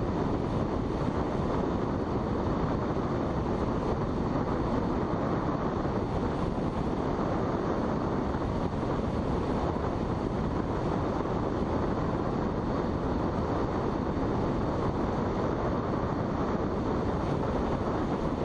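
Steady rushing of air past a sailplane in flight under aerotow, an even noise without a distinct engine tone.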